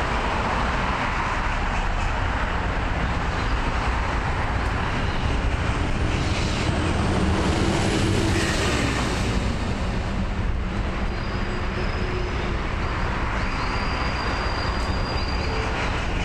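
Road traffic on a busy multi-lane city street: a steady rush of passing cars, swelling about halfway through as a city bus passes close by.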